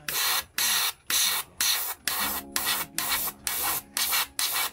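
Gundam Marker Airbrush spraying marker ink in short, even spurts of hiss, about two a second.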